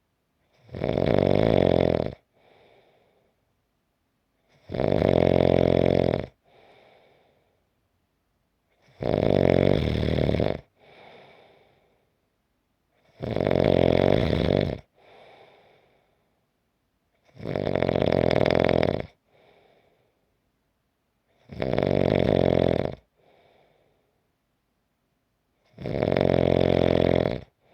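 A person snoring steadily in deep sleep: seven loud snores about four seconds apart, each lasting about a second and a half and followed by a faint, short breath.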